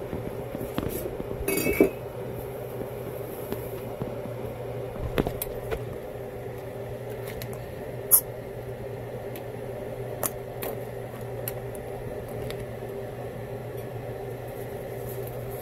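A seafood boil simmering in a large stainless steel pot, with a spoon and ladle now and then knocking and scraping against the pot, the sharpest click about eight seconds in. A steady low hum runs underneath.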